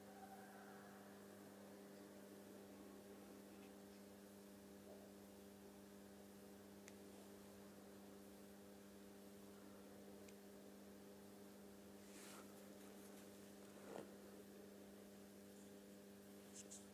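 Near silence with a steady low electrical hum, and a few faint clicks and a soft knock about fourteen seconds in.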